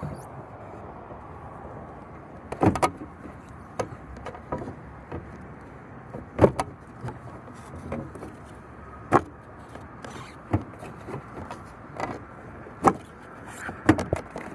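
Locksmith's tools working a locked car door: a run of sharp, irregular clicks and knocks, about one every second or two, over a steady background hum.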